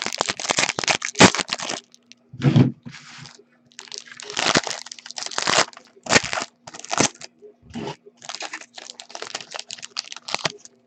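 Foil wrapper of a Panini Certified football card pack crinkling and tearing as it is ripped open and handled, in many irregular short bursts. A faint steady hum runs underneath.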